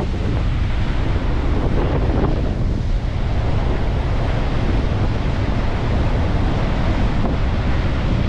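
Waves breaking on a beach, a steady roar of surf, with strong wind buffeting the microphone as a heavy low rumble.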